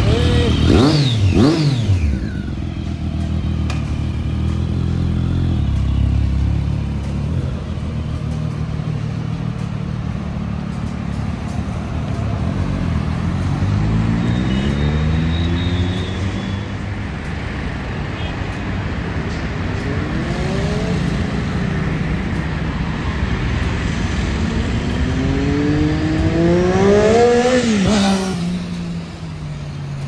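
Triumph Daytona's three-cylinder engine with an Arrow slip-on exhaust: a couple of quick throttle blips, then a steady running note and several rising revs as it pulls away and accelerates. The loudest rise comes near the end and falls in pitch right after, over road traffic noise.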